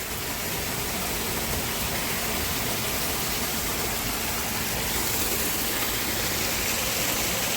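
Steady rushing noise: an even hiss spread across the range, unchanging throughout, with no distinct events.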